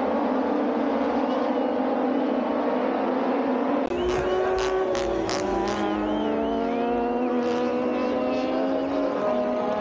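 Several Moto2 racing motorcycles with three-cylinder engines running around the circuit at a distance, their engine notes overlapping and gliding up and down as the riders accelerate and shift. The sound changes abruptly about four seconds in, after which the rising and falling pitches stand out more clearly.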